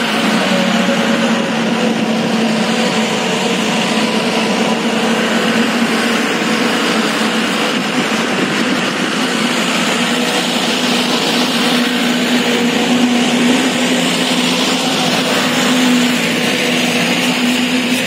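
A motor running steadily, with an unchanging low hum and hiss.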